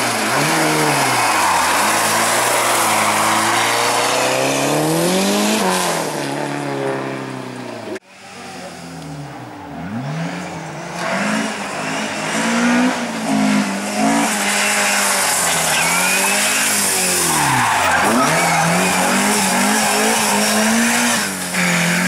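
Historic rally car engines at full racing revs, the pitch climbing and dropping again and again through gear changes and lifts as the cars pass at speed. An abrupt cut about eight seconds in switches to a second car, a Mercedes 190E, revving hard as it slides sideways through a corner.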